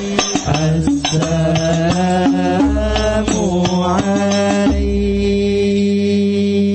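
Islamic devotional singing with musical accompaniment: a melodic chanted line over a steady held drone.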